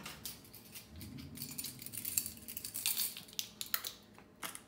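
Light clinks and rattles of kitchen utensils: a set of plastic measuring spoons clattering together as they are taken from a drawer and handled.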